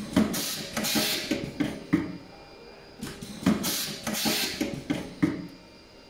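Automatic optical fibre jacket stripping machine running two stripping cycles, each about two seconds of mechanical whirring, hiss and clicking, as it strips the outer or PBT jacket from a fibre fed into it.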